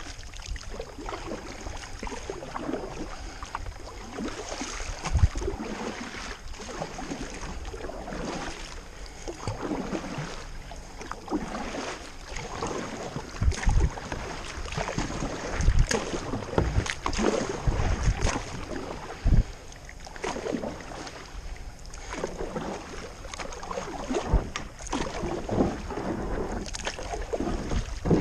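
Kayak paddle strokes swishing and splashing in the river water, one side then the other, with a few sudden low thumps along the way.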